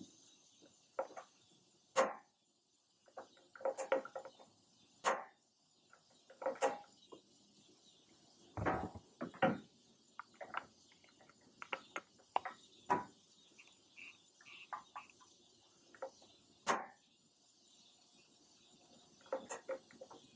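Irregular clicks, knocks and rattles of hands working a propane gas grill's control knobs and gas fittings, some in quick clusters, over a faint steady high hiss.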